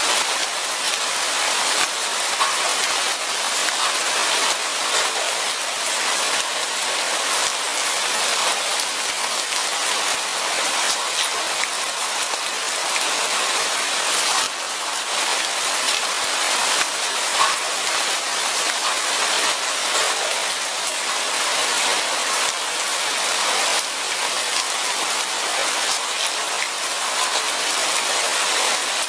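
Steady light rain falling in a forest: a dense even hiss of drops pattering on leaves and ground, with scattered sharper individual drop ticks.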